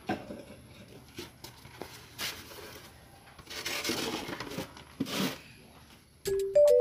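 A knock, then rustling and scraping as a polystyrene foam box is set down on concrete and a bare, soil-covered root ball is handled on it. Near the end, a few bright chime notes of added music begin.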